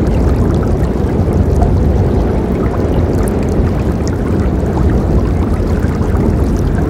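Forest river flowing, a loud, steady rush of water that is deep and even, with no breaks.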